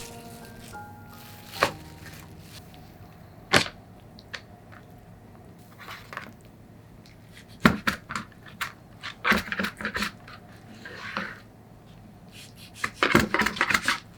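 Kitchen food-preparation sounds: single sharp knocks and clicks of utensils, then quick runs of knocks about eight and thirteen seconds in, with a short rustle around eleven seconds.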